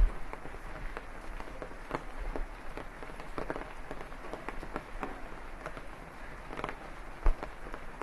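Rain falling, a steady hiss with many irregular sharp drop ticks. Two dull low thumps stand out, one right at the start and one near the end.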